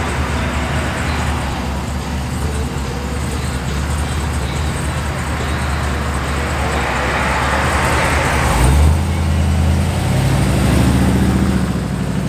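Classic Chevrolet two-door wagon's engine and exhaust rumbling as it rolls out at low speed. A little before nine seconds in the throttle opens and the engine revs up, its pitch rising as the car accelerates away.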